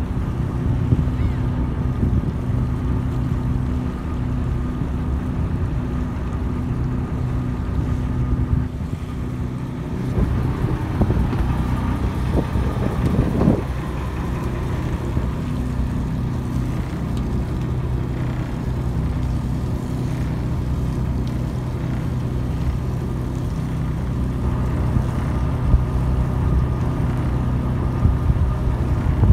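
Boat engine running steadily with a constant low hum, with wind on the microphone; the sound turns rougher for a few seconds about a third of the way in.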